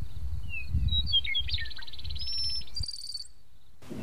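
Birds singing outdoors: clear whistled notes, then a rapid trill and a buzzier, higher trill about three seconds in, over a low rumble that drops away near the end.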